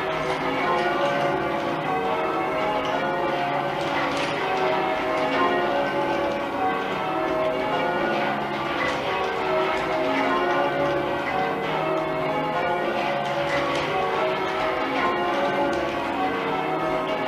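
A ring of ten church bells being rung in changes, the bells striking one after another in a steady, even rhythm with their tones overlapping.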